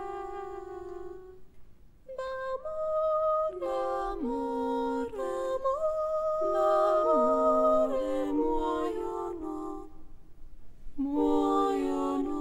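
Contemporary chamber music: several held notes sounding together as chords and moving in slow steps. It breaks off briefly about two seconds in and again about ten seconds in.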